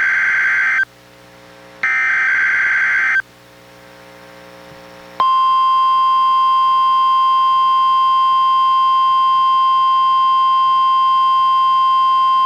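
NOAA Weather Radio test alert: the tail of one SAME header burst and then a full second burst, each a harsh digital screech about a second and a half long, separated by faint hiss. About five seconds in, the steady 1050 Hz warning alarm tone starts and holds.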